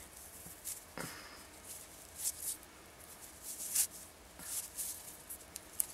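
Faint scattered rustles and soft clicks of a beaded soutache bracelet being handled, about half a dozen brief scrapes.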